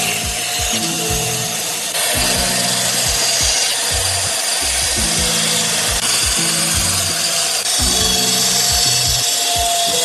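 A power tool working wood: a steady whine with a hissing, grinding noise that shifts in strength a few times as the cut or sanding pass changes. Background music with a steady beat plays underneath.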